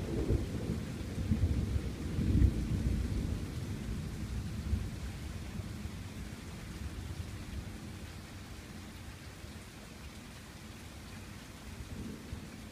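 Thunder rumbling in several swells, loudest in the first few seconds and then dying away, over the steady hiss of rain.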